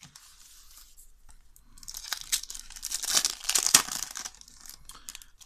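A foil Match Attax trading-card booster pack being torn open by hand, the wrapper crinkling as it rips. It starts as a faint rustle and becomes a loud crackling tear from about two seconds in, dying away about four and a half seconds in.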